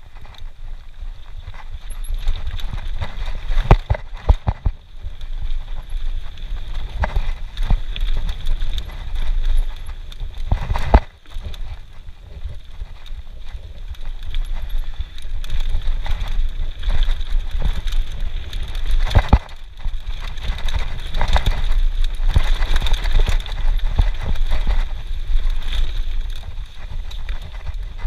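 Mountain bike rolling fast down a dirt singletrack: knobby tyres rumbling over the ground and the bike rattling and clattering over roots and rocks, with sharp knocks from hard bumps, the loudest about 4, 11 and 19 seconds in.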